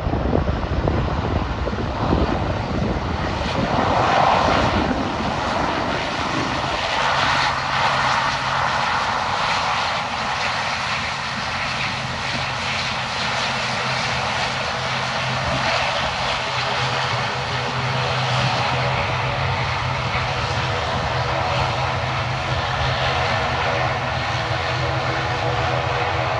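Twin turboprop engines and propellers of an ATR 42 airliner running as it rolls along the runway. The first few seconds are a rushing noise; after that a steady low drone with several steady higher propeller tones holds throughout.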